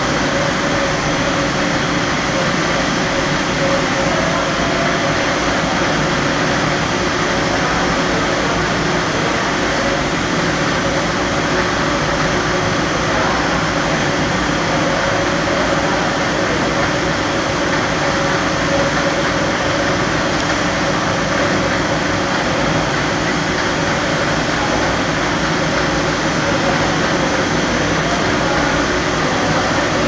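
PP baler twine extrusion and winding line running: godet rollers, drive motors and winders make a steady, even machine noise with a faint steady hum running through it.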